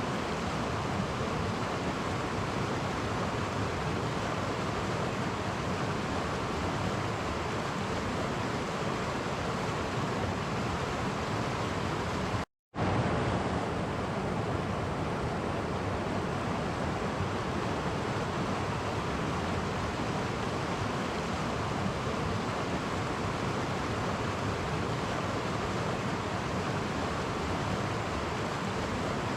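Clear stream flowing over small cascades: a steady, even rushing of water, cutting out completely for a split second about halfway through.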